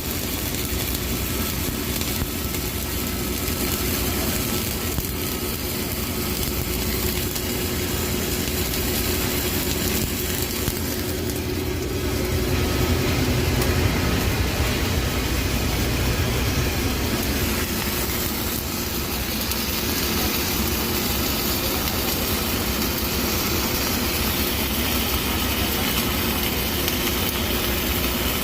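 Electric arc welding on a fillet weld: the arc's steady crackling hiss runs without a break over a low machine hum.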